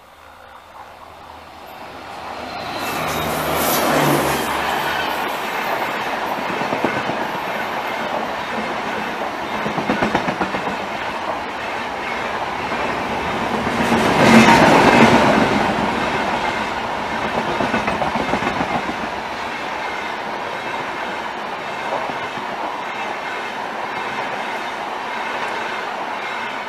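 Diesel locomotive passing at speed, its engine note heard briefly a few seconds in, followed by a long train of passenger coaches rushing past with a steady clickety-clack of wheels over rail joints. It is loudest about halfway through.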